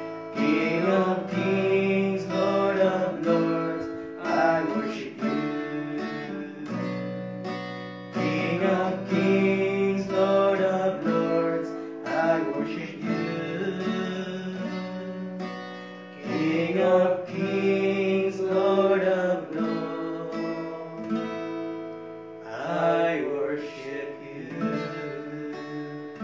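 A man singing a worship song to his own strummed acoustic guitar.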